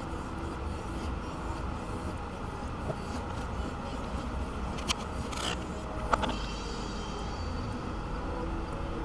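Car driving slowly over snow, heard from inside the cabin: a steady low rumble of engine and tyres, with a few short clicks and knocks about five to six seconds in.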